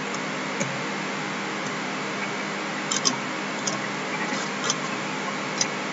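A few scattered taps on computer keyboard keys and mouse clicks, some in quick pairs, over a steady background hiss.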